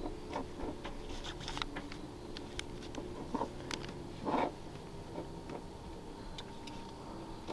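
Hands groping in the water of a boat's livewell to catch a bass: scattered small knocks and splashes, a couple slightly louder about three and a half and four and a half seconds in, over a faint steady hum.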